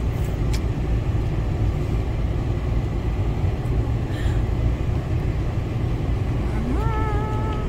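Steady low rumble of engine and tyre noise inside a moving vehicle's cabin.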